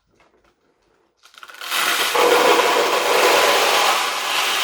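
A load of steel pachinko balls poured into the jackpot hopper of a 1974 Sankyo pachinko machine: a dense, steady clattering rush of metal balls that starts about a second in and builds quickly to full level.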